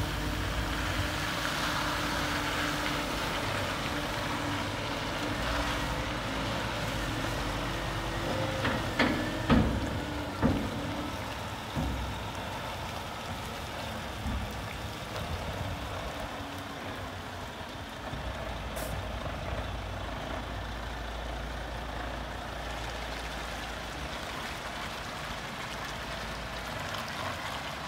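Scania P360 tipper truck's diesel engine running steadily as the truck drives slowly with its hydraulic tipper body coming down. A few sharp bursts of air from the air brakes stand out about nine to eleven seconds in.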